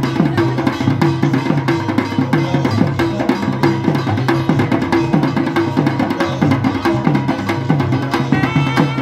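Puja band of barrel drums (dhol) playing a fast, driving rhythm, with bass strokes that slide in pitch. Near the end a small brass horn comes in with held notes over the drums.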